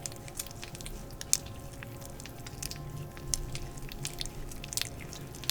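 Wet, sticky clicks and crackles of oil-covered hands massaging skin, close up and irregular, over faint background music.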